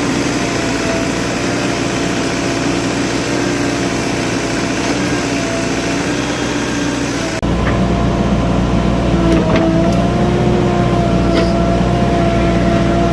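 JCB 3DX backhoe loader's diesel engine running steadily under work. About seven seconds in the sound changes abruptly and gets heavier, and a few light knocks follow.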